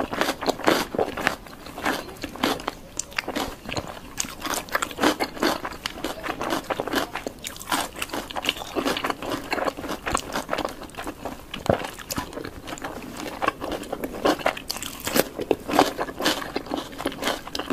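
Close-miked ASMR eating: a steady run of crisp, crunchy bites and chewing, many sharp crunches close together.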